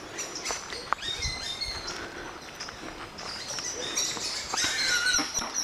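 Birds chirping outdoors: many short, high calls and a few falling whistles, busier near the end.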